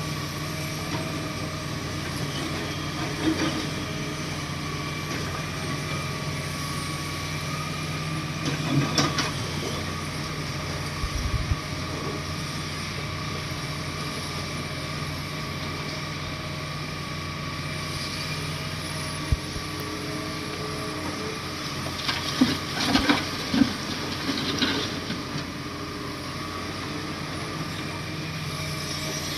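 Heavy diesel engine of a Komatsu D58 bulldozer running steadily, with scattered metal clanks and knocks and a run of them near the end.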